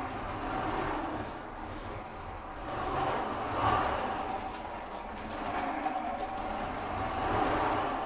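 Life-size 3D-printed R2-D2 driving on a concrete floor: its electric drive motors whine and its rear omni wheels and front casters rumble as they roll. The noise swells and eases three times, at about one, four and seven and a half seconds in, as the droid speeds up and slows.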